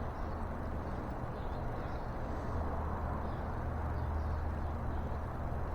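Steady low outdoor background rumble, with no distinct clicks or knocks.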